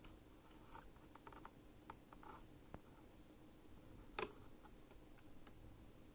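Faint small clicks and scratches of a needle prodding and levering at a broken keycap pin inside a Logitech G910 key switch, with one sharper click about four seconds in.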